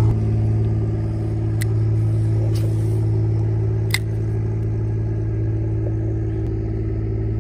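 A steady low mechanical hum, a deep drone with several fainter steady tones above it, with three faint clicks about one and a half, two and a half and four seconds in.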